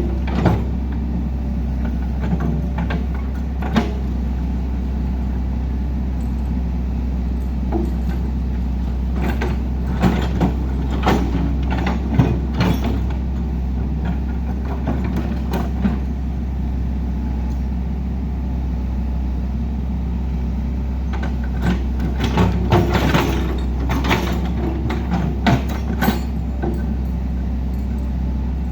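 Heavy diesel engine of road-work machinery running steadily, with scattered short knocks and clanks, bunched about a third of the way in and again near the end.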